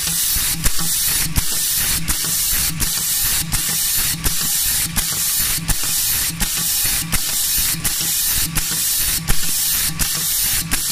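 PVC shrink-capsule making machine running: a steady hiss over a regular mechanical clicking, about two clicks a second, with a low pulsing hum.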